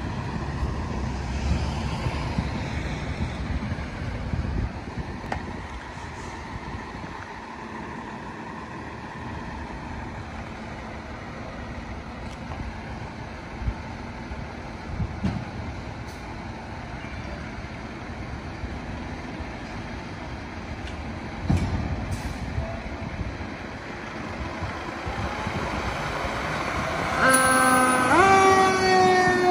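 Fire engine's diesel engine running as the apparatus idles and pulls out of the station bay, with a few knocks. Near the end it sounds its air horn: a loud held chord of several tones, pitch sagging slightly.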